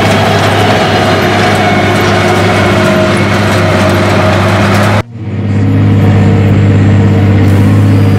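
Deutz-Fahr Agrotron tractor engine running steadily under load, pulling a rotary power harrow and mechanical seed drill through the soil. About five seconds in the sound cuts out and swells back to another steady tractor engine drone.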